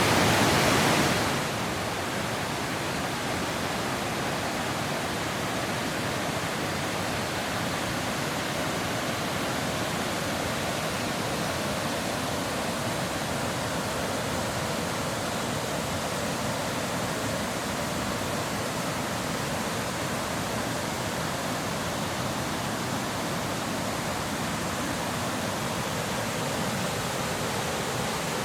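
Small waterfall on a brook, water rushing and splashing in a steady, even roar; a little louder for the first second or so.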